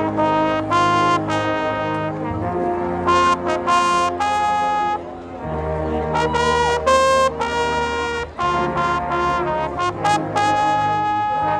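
High school marching band playing, led by brass: trumpets and trombones sounding held chords and short punched notes over sustained low brass.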